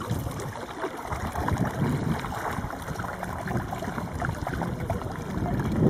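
Kayak paddle strokes splashing and dripping in the water, with water moving along the kayak's hull.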